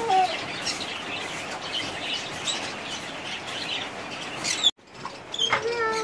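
Many caged birds chirping and twittering, a dense mix of short high calls. The sound drops out briefly about two-thirds of the way through, and a pitched call that falls in pitch follows near the end.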